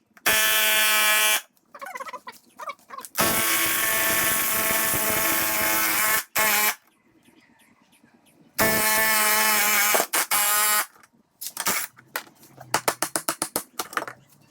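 A power tool running in three bursts of a few seconds each, a loud steady buzzing whine that starts and stops abruptly, followed near the end by a quick run of clicks.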